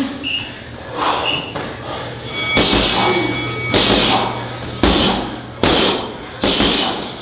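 Strikes landing on a heavy bag: a run of heavy thuds, roughly one a second.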